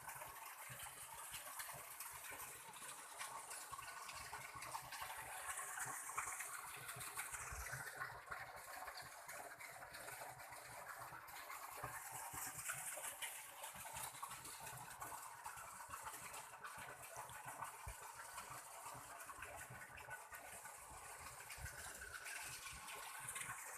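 Waterfall rushing: a steady, faint hiss of falling water.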